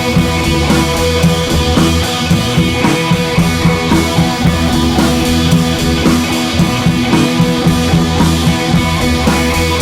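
Background rock music with drums and guitar playing continuously.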